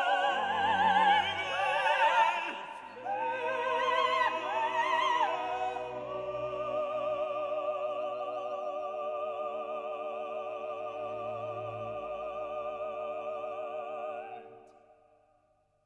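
Background music: an operatic voice singing with vibrato, ending on one long held note that fades out about a second before the end.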